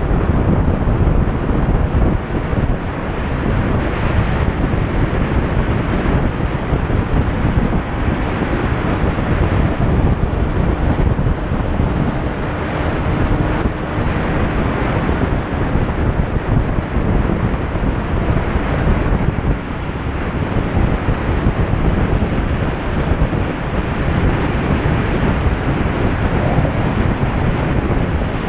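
Heavy wind rush buffeting the microphone of a motorcycle at riding speed, with a faint steady engine drone beneath it.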